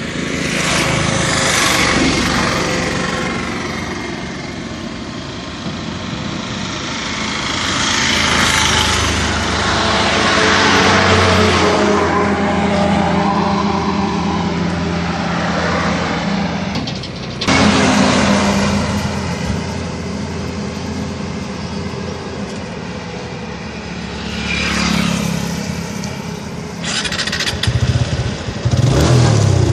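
TVS Apache RTR 180's single-cylinder four-stroke engine running on the stand and revved up and down several times.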